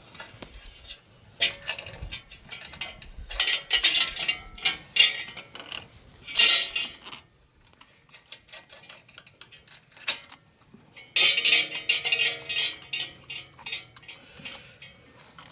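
Metal parts and tools clinking and clattering in irregular bursts as an e-bike's wheel assembly is handled and refitted. There is a long burst in the first half, a quieter gap, then another burst about eleven seconds in.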